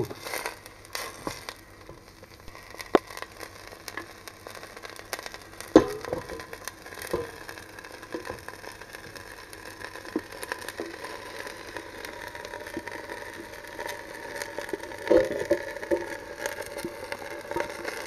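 Chopped hot peppers frying in oil and a little water in a stainless steel pot while being stirred, the utensil scraping and knocking against the pot. There are a few sharp knocks, the loudest about six seconds in.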